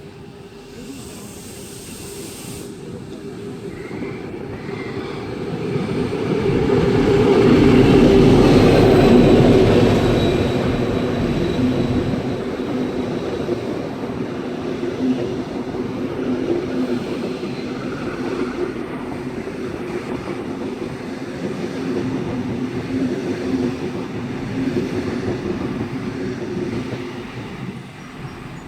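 Diesel locomotive G514 approaching and passing with its engine running, loudest about eight seconds in, followed by the hauled unpowered NIF carriage sets rolling past with a steady rumble that fades near the end.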